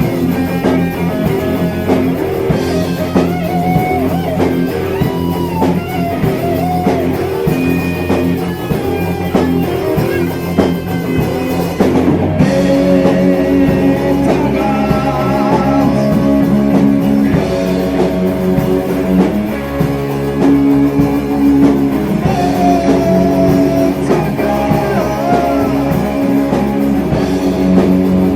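Heavy metal band playing: distorted electric guitars and drum kit, with a change of section about twelve seconds in.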